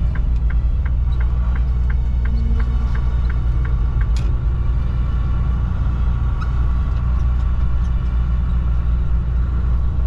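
Steady low engine and road rumble inside a semi-truck's cab. A turn signal ticks about three times a second through the turn and stops about four seconds in, followed by a single click.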